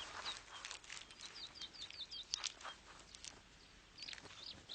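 Faint background birdsong: small birds giving short, high, curving chirps, with a quick run of them about a second in. A few sharp faint taps come in the middle.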